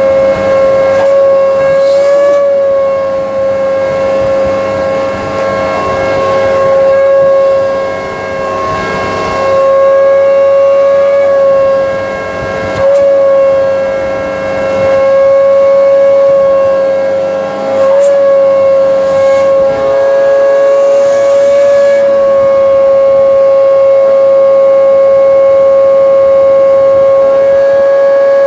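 Hoover Breeze upright vacuum cleaner running: a loud, steady motor whine on one strong pitch, dipping in level briefly a few times as the cleaner is worked.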